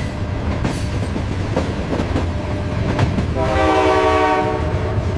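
Train running on rails: a steady low rumble with regular clicks of wheels over rail joints. A train horn sounds at one steady pitch for about a second and a half, starting about three seconds in.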